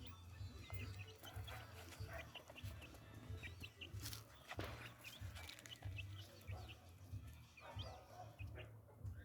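Birds chirping: many short, scattered high calls, some rising at the end, over an irregular low rumble, with a few sharp clicks.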